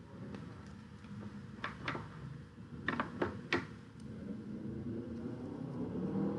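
Five short, sharp clicks, a pair then a quick run of three about a second later, over a faint low background hum.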